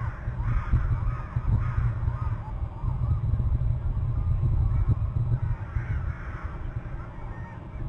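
Wild birds calling in short, repeated harsh calls, in two bouts, over a steady low rumble.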